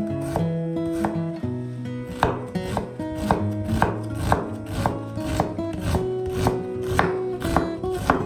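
Knife chopping on a cutting board, about two cuts a second, over background music with long held notes.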